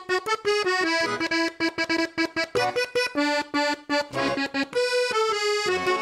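Background music: a lively tune of quick, short notes.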